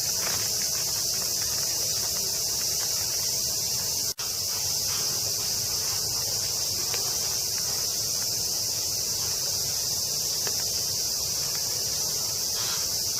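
A steady, high-pitched drone of summer cicadas. The sound drops out for an instant about four seconds in.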